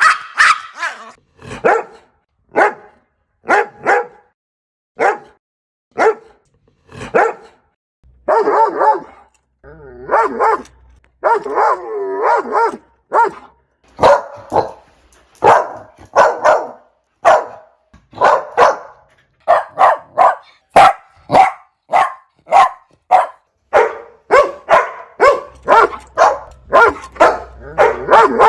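Puppies barking in short, sharp barks, about one a second at first and faster, about two a second, in the second half. A few longer, wavering barks come about a third of the way in.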